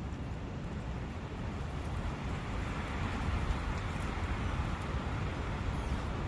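Countryside ambience by a forest brook: a steady rushing of water and air with a low rumble underneath, swelling a little around the middle.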